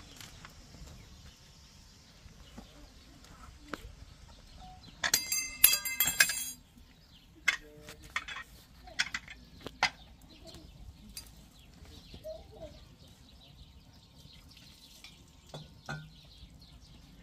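Stainless-steel cooking pots and lids clanking: a loud rattling, ringing clatter of metal on metal about five seconds in, then a few lighter clinks.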